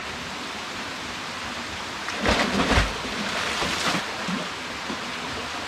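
A person jumping from a rock ledge into a deep pool: a heavy splash with a deep thump about two seconds in, followed by about two seconds of spray and churning water, over a steady background hiss.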